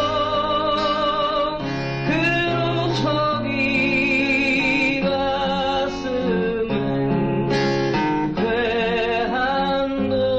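A recorded Korean folk song playing: acoustic guitar with long, wavering sung notes.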